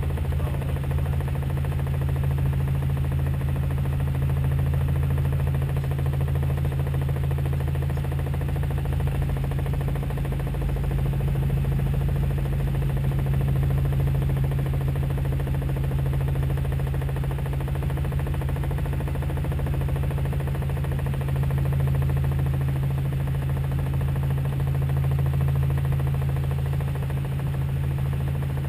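Robinson R44 helicopter in flight: a steady low drone of the engine and rotors, heard from inside the cabin, swelling and easing slightly.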